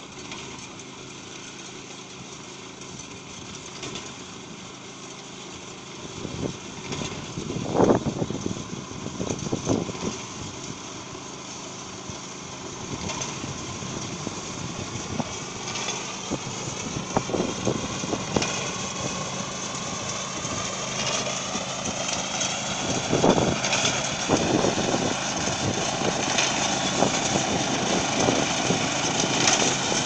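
Small engine of a walk-behind wheat reaper-binder running steadily, growing louder as the machine comes closer. A few louder knocks stand out about eight and ten seconds in and again around twenty-three seconds.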